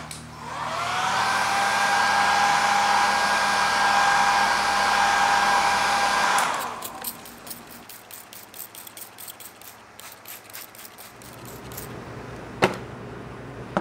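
Hot-air blower (heat gun or hair dryer) switched on, its whine rising as the motor spins up, blowing steadily for about six seconds and then cut off. A run of quick light ticks follows, and a single sharp click near the end.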